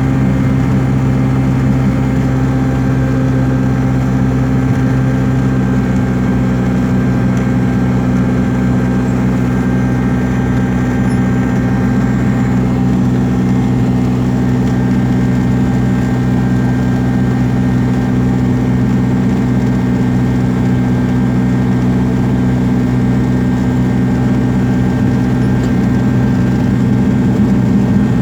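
Cessna 172R's four-cylinder Lycoming engine running steadily, heard inside the cockpit, with a constant low propeller-engine drone.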